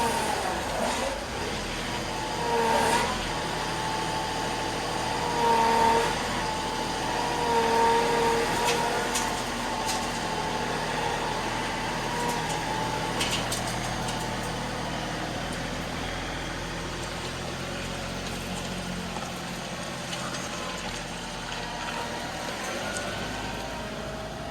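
John Deere 2038R compact tractor's diesel engine running steadily under work, with a higher whine swelling three times in the first nine seconds and a few sharp knocks.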